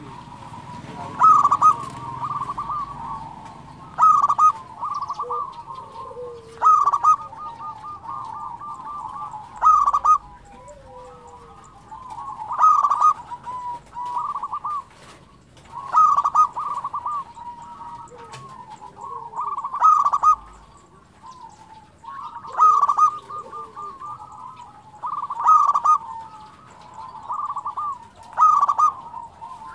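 Zebra dove (perkutut) singing its rapid, pulsed cooing phrase over and over, about once every three seconds, with softer cooing between phrases.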